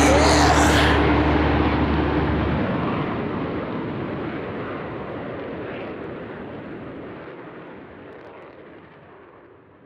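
Jet aircraft roar fading slowly away, its highs dying first. The song's last held notes stop within the first couple of seconds.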